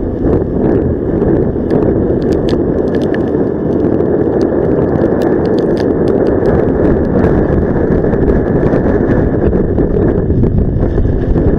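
Honda Gyro X three-wheel scooter being ridden through typhoon wind and rain: a loud, steady rush of wind and road noise on the microphone, with many scattered sharp ticks through it.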